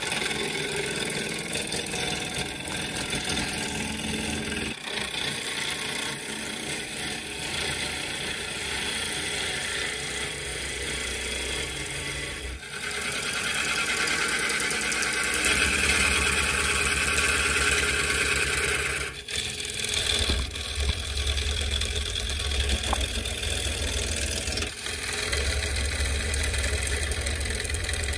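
Wood lathe running while a bowl gouge cuts into a spinning laburnum burl blank: a steady rasping cut over the motor's hum, with stretches of heavier low rumble in the second half and brief pauses in the cut.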